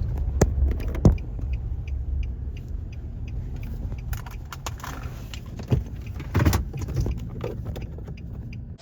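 Car cabin with the low rumble of the vehicle slowly fading as it pulls to a stop, with scattered clicks and knocks from inside the car.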